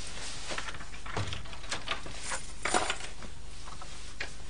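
Several light clicks and knocks, spaced unevenly, over a faint steady hiss.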